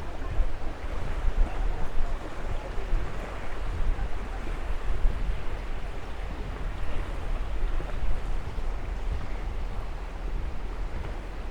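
Wind buffeting the microphone: an uneven, gusting low rumble with a hiss above it.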